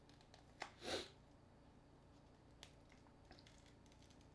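Mostly near silence, broken by a few faint clicks and one brief scrape about a second in, as a smartphone's plastic parts are handled and pried apart by hand.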